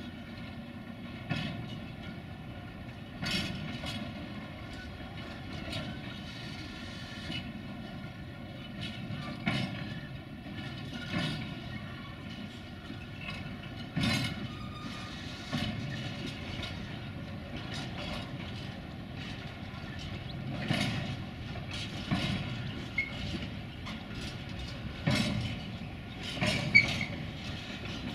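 Railway wagons rolling past over a steady rumble, their wheels knocking over rail joints at irregular intervals, one to a few seconds apart, the loudest knock near the end.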